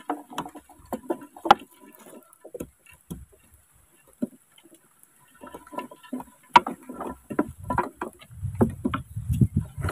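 Scattered light knocks and taps from a small wooden sampan and the fishing rods and reels being handled in it, with a low rumble on the microphone building near the end.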